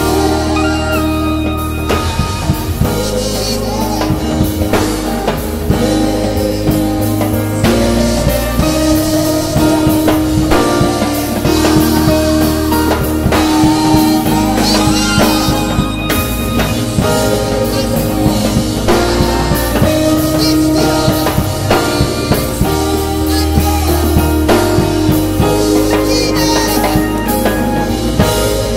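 Live gospel worship music: electric keyboards playing chords over a bass line, with a drum kit keeping the beat.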